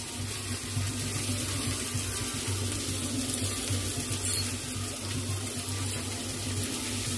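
Steady sizzle of potatoes and onions frying in oil in a pan.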